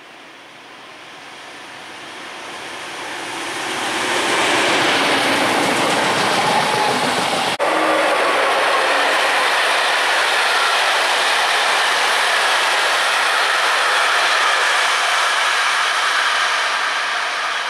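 Locomotive-hauled passenger train of blue coaches approaching and running past on electrified main-line track, the wheels rumbling and clattering on the rails. The noise swells over the first four seconds, then holds as a loud, steady rush while the coaches roll by.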